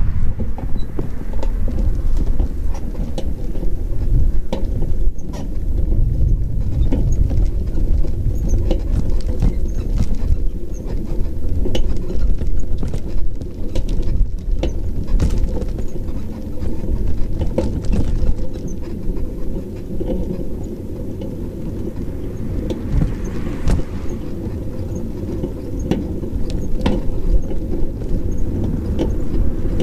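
Rumble and rattle from a camera riding on a moving bicycle: tyres and frame shaking over pavement, a low steady rumble with frequent small clicks and knocks.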